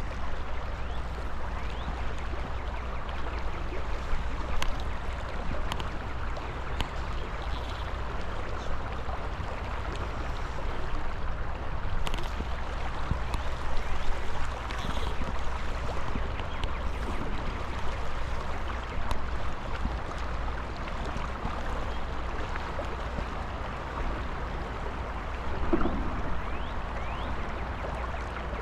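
River water rushing steadily, with a few scattered faint clicks and a brief low call near the end.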